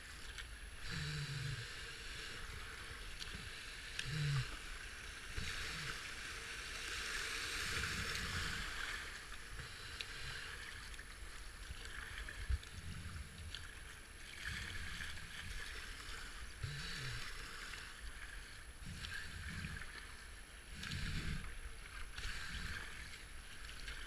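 River water rushing and splashing around a racing kayak running a shallow rapid, with the paddle blade dipping in now and then. The rush of water swells for a few seconds about a third of the way in.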